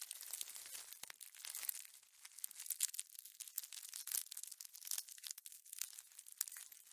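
Insect sound: dense, irregular crackling and clicking, mostly high-pitched, with no buzzing tone.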